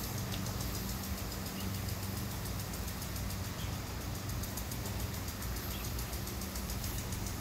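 Steady low mechanical hum, like an engine or motor running, with a few faint clicks scattered through it.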